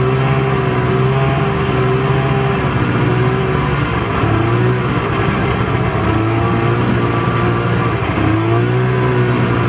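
Snowmobile engine running under way, its pitch dipping and rising again a couple of times as the engine speed changes.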